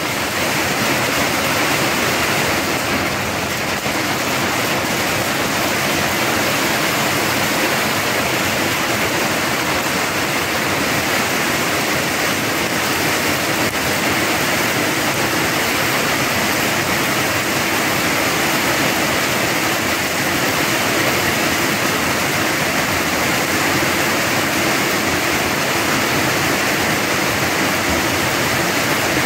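Heavy summer thunderstorm rain pouring down steadily, a dense even hiss.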